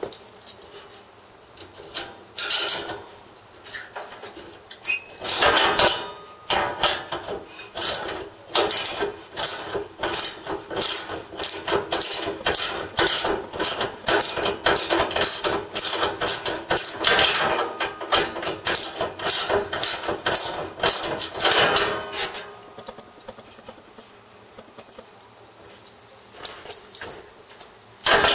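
Socket ratchet wrench clicking in long runs of quick strokes as bolts are loosened. The clicking stops a few seconds before the end.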